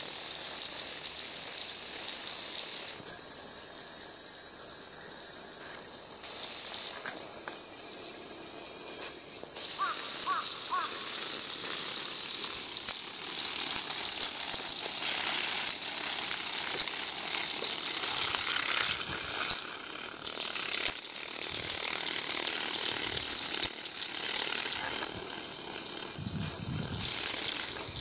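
Many cicadas buzzing together in a steady, dense, high-pitched chorus.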